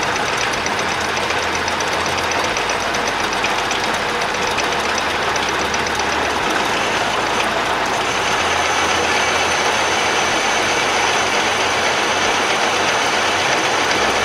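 Manual metal lathe running steadily, its chuck spinning while the cutting tool turns down the diameter of a metal shank.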